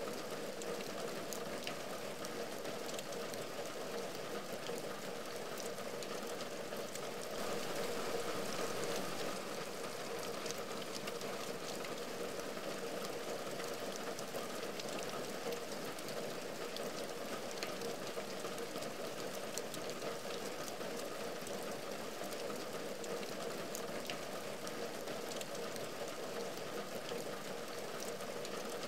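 Steady rain falling on a window and its ledge, with many separate drop ticks over an even hiss; it swells a little about seven to nine seconds in.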